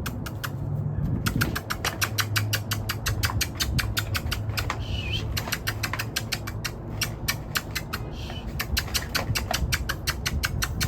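Puppies' claws clicking rapidly on a hard balcony floor as they run about, about five clicks a second, over a steady low hum.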